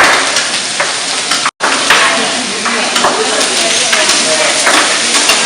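Eggplant, onion and garlic sizzling in olive oil in a stainless steel saucepan, with scattered clicks and scrapes of a utensil as the vegetables are stirred. The sound cuts out for an instant about a second and a half in.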